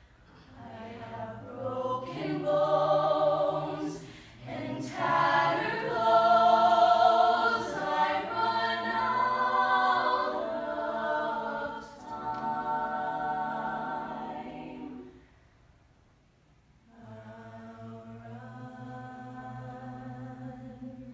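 Mixed-voice a cappella choir singing in close harmony with no instruments. The voices swell to their loudest in the middle, stop for about two seconds of near silence, then come back softly on a long held chord.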